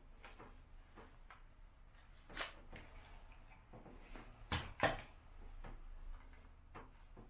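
Plastic clicks and knocks from handling the Dyson V10 Fluffy cordless vacuum while its dust bin is emptied. There is a sharper knock about two and a half seconds in and two loud clacks close together near the five-second mark.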